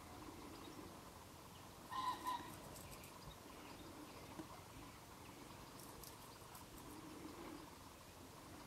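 A bird gives a short two-note call about two seconds in. Faint, quick clicks of a water vole chewing plant food come in small clusters over quiet outdoor background.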